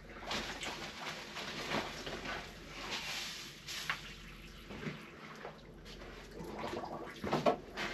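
Sugar being scooped from a paper sack with a small plastic container, rustling and scraping with a few clicks, then tipped into warm water in a large plastic tank with some light splashing. There is a cluster of louder knocks near the end.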